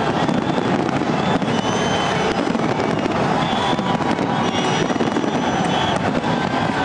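Fireworks crackling and popping in a dense, steady stream, mixed with a large crowd cheering and a few short whistles.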